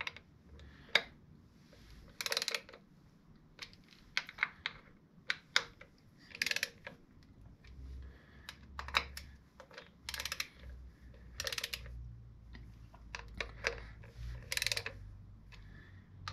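Small hand ratchet clicking in short rapid bursts every second or two as the derby-cover screws on a Harley primary cover are run in snug.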